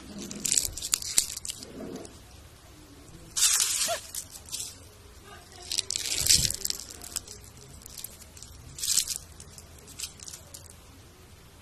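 Leaves being crushed and torn by hand, in several short crunching, crackling bursts with pauses between them.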